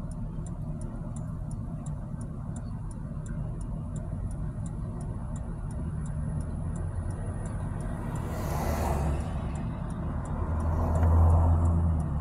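Riding in a moving vehicle, heard from inside: a steady low engine and road rumble, with a faint, regular, rapid ticking. About eight seconds in, a passing vehicle brings a rush of noise, and a louder low rumble swells near the end.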